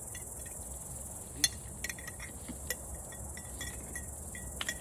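Steady high chirring of insects in the summer grass, with scattered light clicks and taps of a knife working over a glass jar. The sharpest tap comes about a second and a half in.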